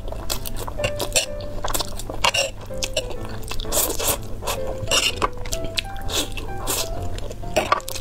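A person slurping and chewing instant noodles in quick wet mouthfuls, with background music of short, scattered notes playing along.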